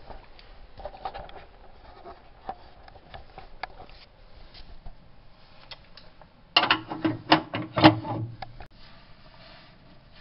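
Faint handling clicks, then about six and a half seconds in a loud couple of seconds of metal clanking and grating as the wood stove's bypass gate mechanism is worked.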